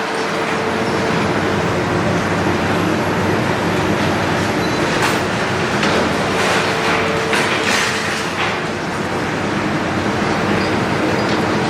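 Heavy demolition machinery running steadily, its engine hum under a noisy rattle, with several sharp clanks and crunches about halfway through.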